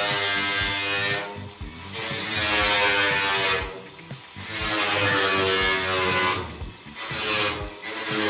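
Cordless angle grinder cutting into a steel car bonnet in about five bursts, each one to two seconds long, the motor's whine dropping in pitch as it winds down between them.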